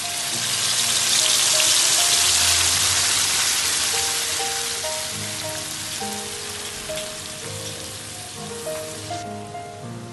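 Food frying in hot oil, a steady sizzle over soft background music. The sizzle is loudest about two seconds in, eases off, and cuts off abruptly near the end.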